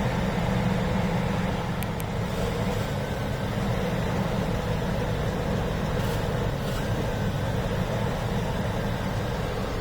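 2004 GMC Yukon's Vortec V8 idling steadily with the intake tube off and the throttle body open, after a throttle-body cleaning for a rough idle.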